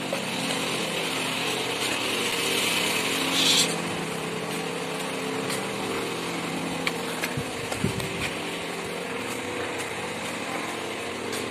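A small motor or engine running steadily with a low hum. A hiss over it cuts off suddenly a few seconds in, and there are a few light clicks.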